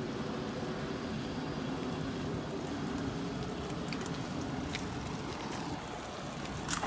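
Steady city-street traffic noise with a low rumble. A single sharp knock comes near the end.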